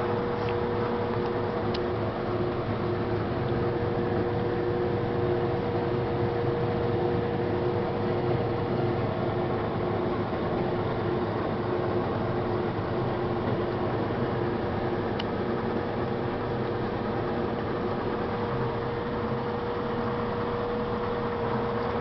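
Combine harvester running steadily: a constant machine drone with an unchanging tone on top.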